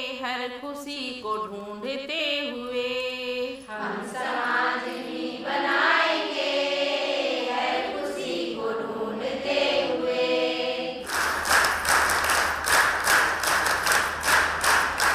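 A group of voices singing a song together, with long held notes. About eleven seconds in, the song gives way to a crowd clapping in a steady rhythm.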